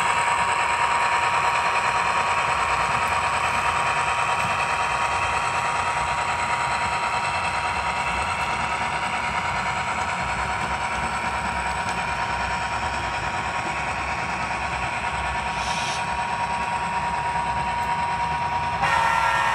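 Model diesel locomotive's onboard sound running a steady diesel engine sound as the train rolls past on the track, slowly getting quieter. Near the end a horn sounds.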